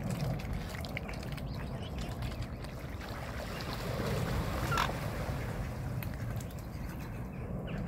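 Swans and cygnets paddling and splashing in the water close by, over a steady low rumble. A short, sharper sound stands out about five seconds in.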